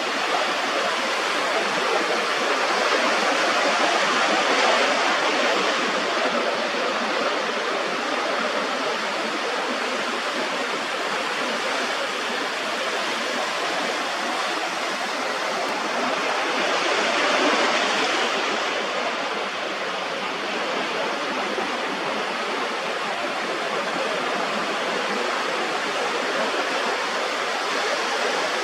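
Steady rush of ocean surf washing over rocks, swelling louder a few seconds in and again about two-thirds of the way through.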